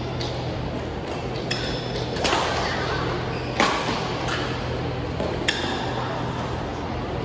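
Badminton rally: three sharp racket strikes on a shuttlecock, about two seconds apart, the middle one the loudest, over a steady low hum in a large hall.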